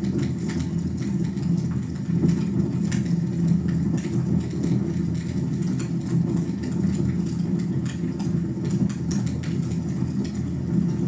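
Wood fire burning in a fireplace: a steady low rumble with scattered faint crackles.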